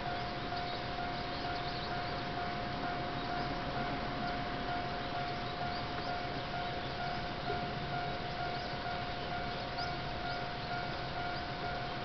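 Japanese railway level-crossing alarm ringing, a repeated electronic bell tone held at a steady pitch, warning that a train is approaching.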